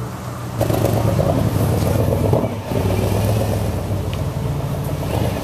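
A road vehicle's engine running as it drives past, starting suddenly about half a second in as a low, steady note, with a brief dip about two and a half seconds in.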